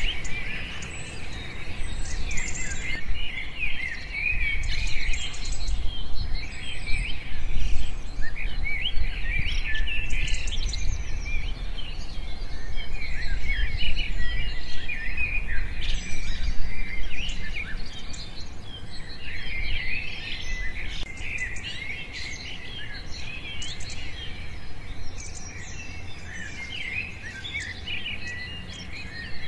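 Many small birds chirping and twittering together in a continuous chorus of short, quick high calls, over a low steady rumble.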